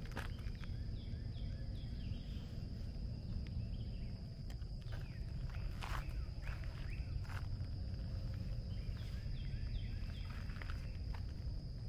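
Footsteps crunching on a trail, with birds chirping in short repeated phrases and a steady high-pitched tone underneath.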